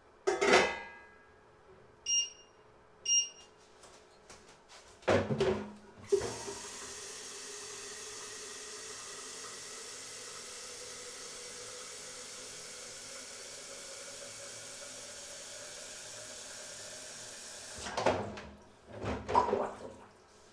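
Kitchen tap running into a plastic measuring jug for about twelve seconds: a steady rush of water with a faint tone that slowly rises as the jug fills. Before it come a sharp metal clatter and two short electronic beeps; a few knocks and clatters follow near the end.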